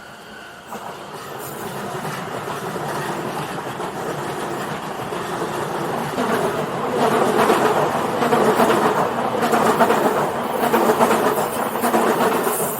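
JR Nanbu Line E233-series electric commuter train passing over a level crossing, wheels clattering on the track. It builds from about a second in and is loudest in the second half.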